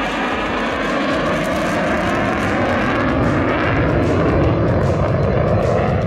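F-22 Raptor's two Pratt & Whitney F119 turbofan engines giving loud, continuous jet noise as it flies past, the tone slowly shifting.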